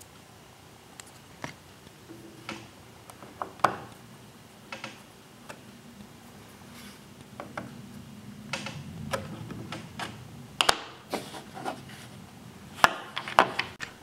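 Small clicks and taps of a plastic folding-knife handle scale being handled on a workbench, with a pen scratching as it traces around the scale from about eight seconds in. The loudest clicks come near the end.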